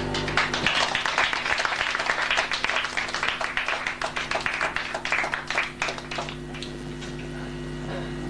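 Audience clapping in a small room, a dense burst of applause that thins out and dies away after about six seconds, with a steady low hum underneath.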